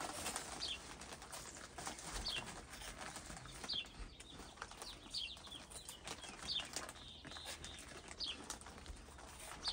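Wild birds chirping: short high notes, each falling in pitch, about one every one and a half seconds.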